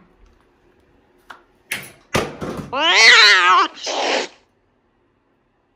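A cat meowing: one loud, wavering cry of about a second, roughly three seconds in, just after a few knocks and rustles.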